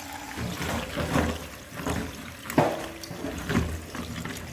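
Tap water running while raw chicken pieces are rinsed by hand, with irregular splashing and handling noises and a sharper clatter about two and a half seconds in.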